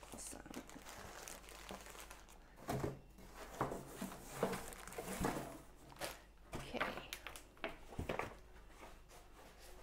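Cardboard mailing box being torn open and plastic-bagged packages crinkling as they are handled, in a series of short rustles and tears from about three seconds in, with a soft bump near the end.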